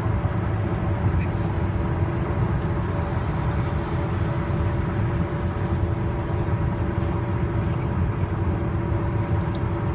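Steady road noise of tyres on the Interstate 81 pavement at highway speed: an even low rumble with a faint droning hum over it.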